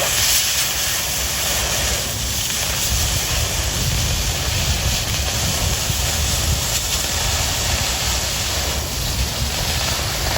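Oxy-fuel cutting torch blowing its cutting-oxygen jet through 1/4-inch steel plate during a cut: a steady hiss with a low rumble underneath.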